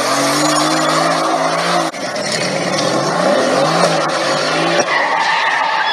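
Sports car doing a smoky burnout drift, its tyres squealing and the engine revving, with the pitch rising and falling. There is an abrupt break about two seconds in.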